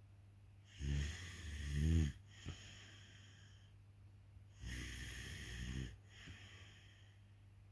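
Snoring: two snoring breaths about four seconds apart, the first rising in pitch at its end.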